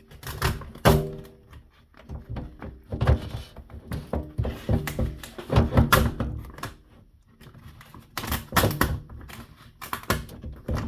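Skateboard griptape being pulled off the deck: the adhesive crackles and rips in uneven bursts with short pauses, mixed with thunks of the board being handled. The grip is strongly stuck and hard to remove.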